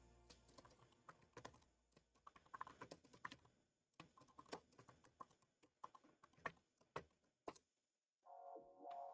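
Faint typing on a computer keyboard: a quick, irregular run of key clicks. It stops shortly before the end, where music comes in.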